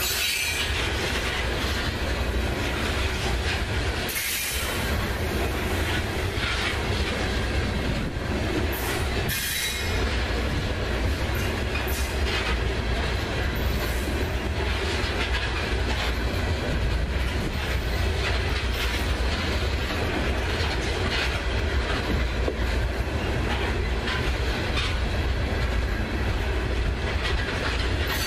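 Loaded coal hopper cars of a freight train rolling steadily past, their steel wheels rumbling and clicking over the rail.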